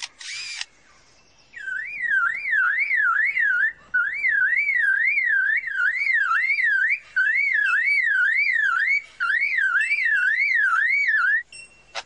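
Superb lyrebird mimicking a car alarm: a loud warbling siren that sweeps up and down about two and a half times a second, in four bouts broken by brief pauses. A short rasping burst comes right at the start.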